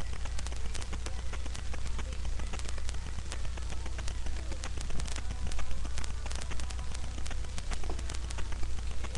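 Small dog playing with a plush toy on bedding: a dense patter of small clicks and rustles from its mouth, paws and collar tag, over a steady low hum.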